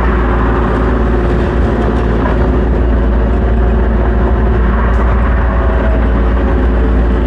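Tractor engine running steadily at a constant speed, with a deep, even drone.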